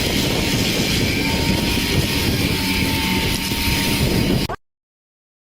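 Tractor-driven PTO forestry tiller running, a loud steady machine noise with heavy low rumble. It cuts off suddenly about four and a half seconds in.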